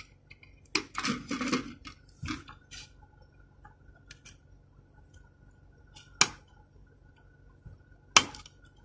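Small handling noises and clicks as the address DIP switches on an addressable smoke detector are flipped with a pen tip, setting the device's address. Two sharp clicks about two seconds apart near the end are the loudest sounds.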